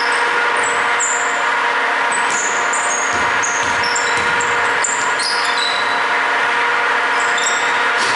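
Basketball shoes squeaking on a hardwood court: many short, high chirps scattered throughout, over a steady hum filling the hall.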